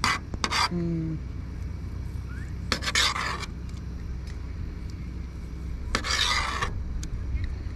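Knife sawing through the crunchy sesame-seed crust of a seared tuna steak and scraping on a metal plate: a few short scrapes at the start, then two longer rasping strokes about three and six seconds in, over a steady low hum.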